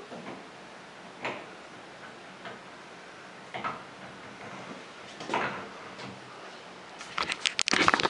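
Light clicks and knocks of a shower head being handled and fitted back onto its shower arm: a few separate clicks, then a quick run of louder clicks near the end.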